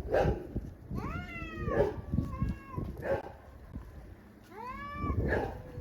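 Domestic cats in a fight, yowling: two long drawn-out calls that bend in pitch, with short sharp noises between them.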